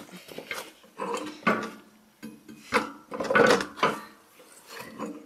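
Steel plow-mount parts clanking and scraping against each other as the lift rod is worked by hand to line a hole up onto a pin on the mount frame. The knocks and rattles are irregular and come thickest about three seconds in.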